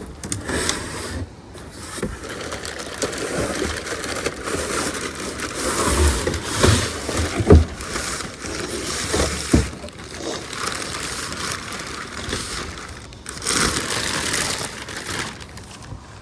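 Packaging being handled and pulled open: continuous crinkling and rustling, with a few soft thumps in the middle.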